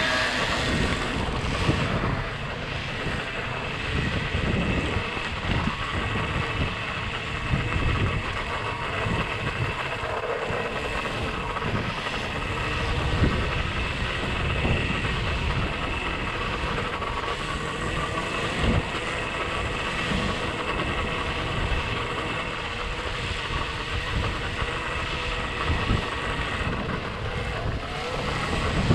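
KTM SX-E 3 electric minibike ridden over a dirt trail: a faint steady high electric-motor whine under wind buffeting on the microphone, with frequent knocks and rattles as the bike goes over rough ground.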